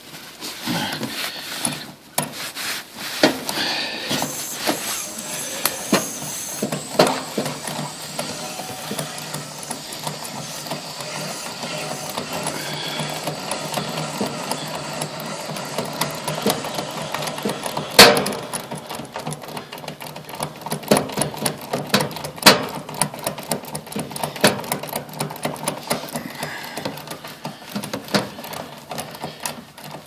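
Tool clicking and scraping at the brass service valves of a new air-conditioner condensing unit as the valve stems are wound open by hand. A steady hiss runs underneath, with one sharp loud click about halfway through and denser rapid clicking in the second half.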